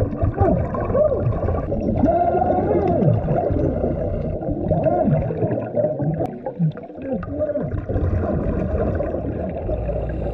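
Underwater sound of a scuba diver's exhaled air bubbles gurgling past the microphone: many short warbling rises and falls in pitch over a constant watery wash.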